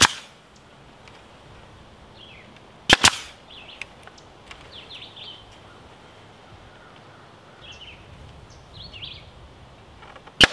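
Pneumatic staple gun firing staples through chicken wire into a wooden board: a sharp crack at the start, another about three seconds in and a third at the end. Faint bird chirps in between.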